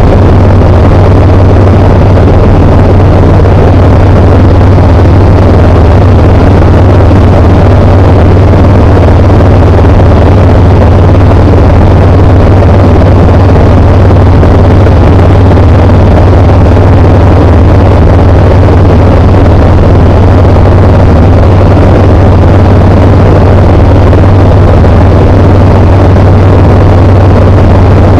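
Tecnam P92 Echo Super light aircraft's Rotax 912 four-cylinder engine and propeller running steadily: a loud, unchanging drone with a strong low hum.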